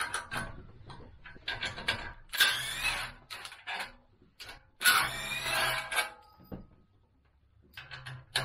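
A power tool running in two short bursts, about two and five seconds in, with clicks of tools on metal parts between them.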